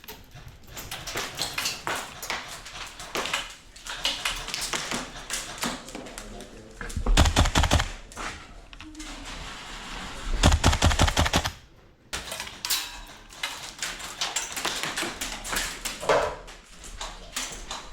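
Airsoft gas blowback rifle firing: two loud rapid-fire bursts, about seven and ten seconds in, each about a second long, among scattered sharp clicks and single shots.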